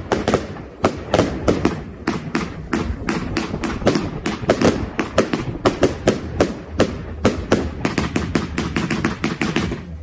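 Fireworks going off in quick succession: an uneven string of sharp bangs, several a second, as shots burst into sparks overhead.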